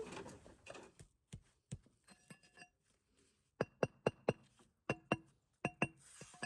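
Bricks being tapped into their bed with a metal hammer: a few faint knocks, then about eight sharp ringing clinks, mostly in quick pairs, starting about three and a half seconds in.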